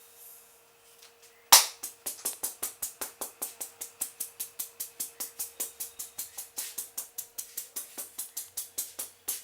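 Hands slapping rhythmically on a head during an Indian head massage, a fast even run of sharp strikes at about six a second. It begins with one loud slap about a second and a half in.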